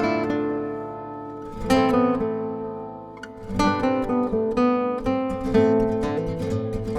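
Acoustic guitar music: strummed chords that ring out and fade, then are strummed again.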